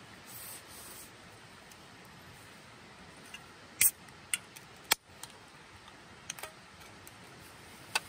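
An aluminium beer can opened by its pull tab: a few sharp clicks and snaps, the loudest about four and five seconds in, with smaller ticks after. A brief faint scrape of a knife on a wooden plate comes in the first second.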